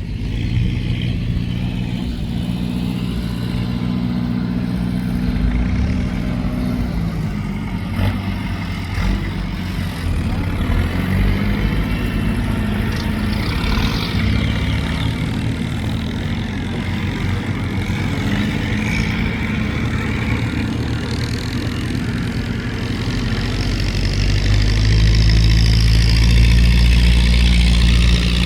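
Ford 6640 tractor's diesel engine running under load while pushing soil, its pitch shifting a few times. It gets louder near the end.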